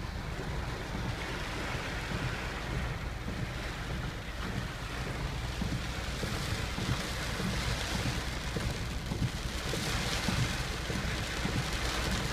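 Wind gusting on the microphone over the steady rush of a river running high with typhoon rain. The gusts strengthen for a few seconds past the middle.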